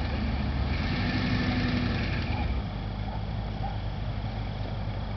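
Full-size Ford Bronco's engine pulling hard under load as the truck climbs over a dirt mound. It is louder for the first two and a half seconds, then eases back to a steadier, lower running sound.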